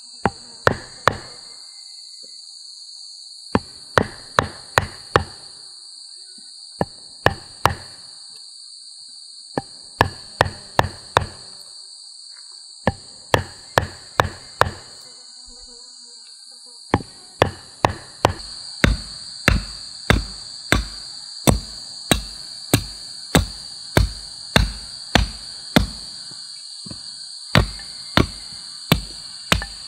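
Hatchet blade chopping into wood, carving out a hollow: short groups of three or four sharp blows with pauses, then from a little past halfway a steadier run of blows at roughly two a second. A steady high insect drone runs behind the chopping.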